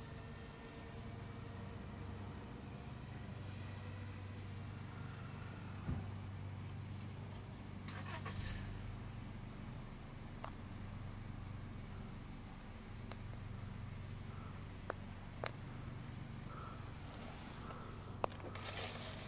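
Insects chirping steadily in the background in a fast, even pulse. Just before the end there is a short scraping rush as the foam RC plane touches down and skids on the asphalt street.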